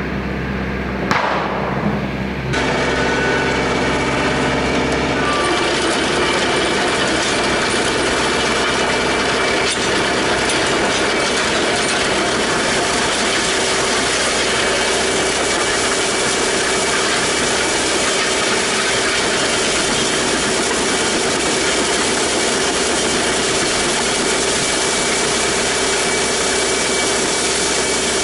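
Compact tractor (RK 55) pulling a land plane across a gravel driveway: a dense, steady grinding and scraping of gravel under the blades, with the engine running steadily underneath. It starts about two seconds in.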